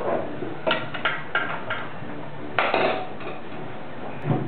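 Small metal engine parts clinking and clattering as they are handled on a workbench: a few quick light clinks, a louder clatter about halfway, and another knock near the end.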